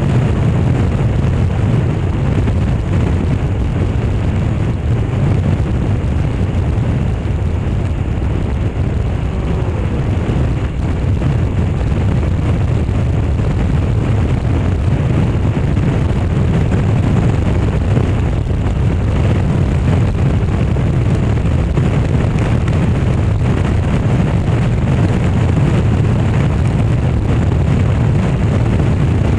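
Motorbike riding at road speed, heard through a handlebar-mounted action camera's built-in microphone: steady, loud wind rumble on the mic over the engine and road noise.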